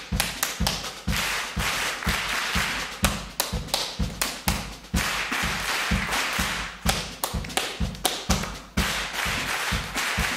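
Body percussion by hand: claps and slaps on the chest and thighs in a quick, uneven rhythm of about three strikes a second, many with a deep thump.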